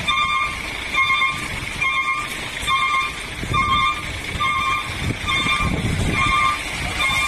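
A vehicle's reversing alarm beeping steadily, about once a second, each beep a single electronic tone. Behind it is the continuous hiss and rumble of cars driving on a rain-soaked road.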